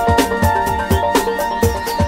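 Background music with a steady electronic beat, about two kick-drum hits a second under held melodic tones.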